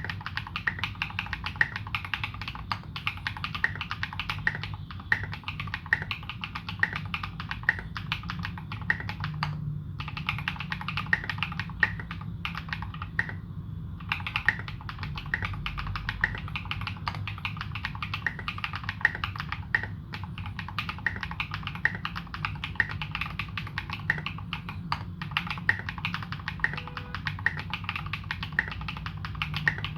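Continuous fast typing on a Morgan65 custom mechanical keyboard with modded Holy Panda tactile switches and SA-profile keycaps: a steady stream of key clacks, with two brief pauses about a third of the way in.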